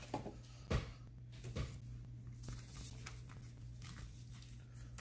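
Trading cards handled on a playmat, gathered and squared up by hand: faint rustling and light taps, with two louder taps about three-quarters of a second and a second and a half in, over a faint steady hum.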